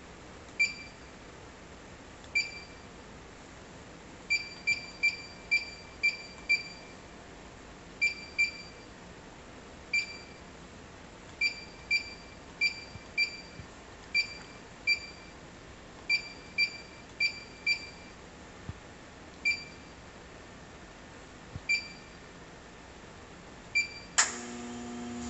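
Keypad beeps from an Autool LM706 refrigerant filling machine: a short, high-pitched beep with each button press while stepping through its menu, many times, sometimes in quick runs of several. Near the end the machine starts up with a steady hum.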